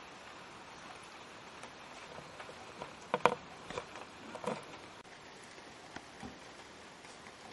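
Small plastic clicks and taps as a capsule-toy figure's earphone-jack plug is handled and pushed into a device's headphone socket: a sharp pair of clicks about three seconds in, then a few softer clicks over the next second or so.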